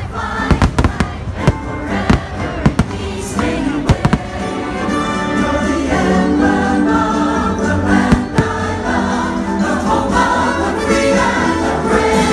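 Aerial fireworks bursting in quick succession over loud show music with voices singing. After about four seconds the bangs thin out, leaving one more near the end, and the music carries on with long held notes.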